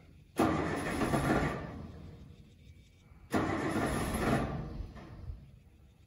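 Old farm truck engine being cranked to start, twice: each try comes in suddenly, runs about a second and fades away without the engine keeping running.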